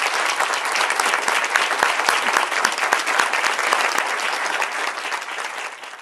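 Audience applauding: a dense clatter of many hands clapping, fading out near the end.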